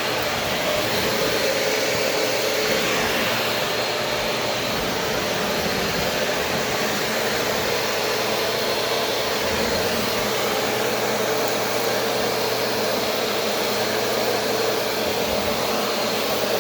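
Shark Navigator DLX upright vacuum cleaner running steadily as it is pushed over a kitchen floor, picking up crumbs and dirt, a constant motor whine over the rush of air.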